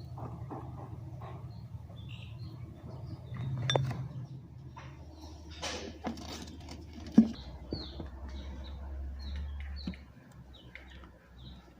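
Repeated short, high chirps of small birds over a low steady hum, with a few sharp clicks.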